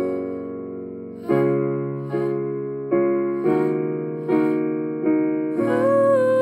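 Background music: electric piano chords struck roughly once a second, each fading before the next. A humming voice comes in near the end.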